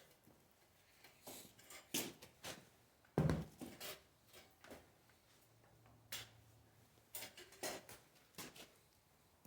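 Scattered handling noises: light knocks, clicks and rustles, with one loud dull thump about three seconds in, as things are set down and moved around on a work surface.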